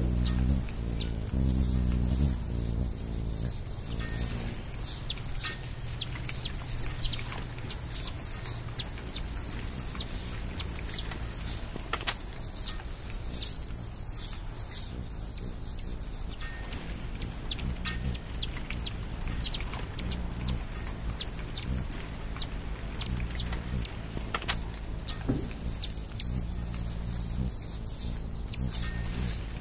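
Insects trilling in a steady high chorus that breaks off briefly a few times, with scattered short bird chirps and a soft low musical drone underneath.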